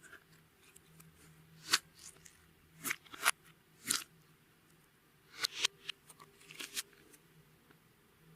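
Clear slime being pressed and worked, giving short sticky crackles and pops in about five clusters.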